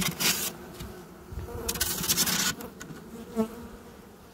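Disturbed honeybees buzzing in a steady hum around an opened hive, with two short noisy handling sounds, one at the start and one about two seconds in.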